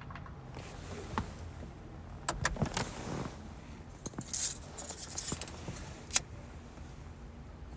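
Irregular sharp clicks and brief rattling, rustling noises over a low steady hum: a cluster about two to three seconds in, more around four to five seconds, and one sharp click about six seconds in, the loudest.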